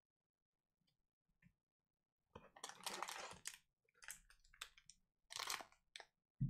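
Foil wrapper of a 2018-19 Donruss Soccer trading-card pack crinkling as it is handled and torn open, in several short crackling rustles starting about two seconds in.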